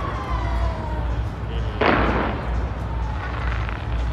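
Fireworks exploding: one loud bang about two seconds in, over a steady low rumble.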